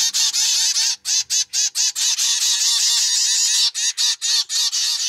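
Zebra finch chicks begging to be hand-fed from a syringe: a dense, continuous chatter of rapid, high begging calls from several birds at once, with a few brief breaks.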